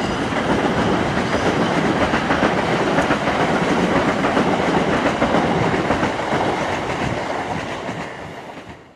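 A train running past on the rails, its wheel-on-rail noise loud and steady, then fading away over the last two seconds.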